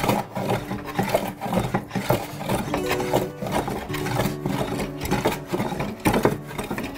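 Repeated strokes of a No. 7 jointer plane with a deep set shaving a wooden bench top: the blade catches on the high spots and skips across the low ones as the top is flattened. Background music plays underneath.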